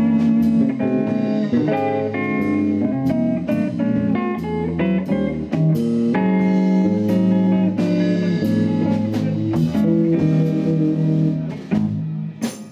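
Live blues band playing an instrumental break: plucked guitar notes leading over bass guitar and a steady drum beat. A loud drum or cymbal hit comes near the end.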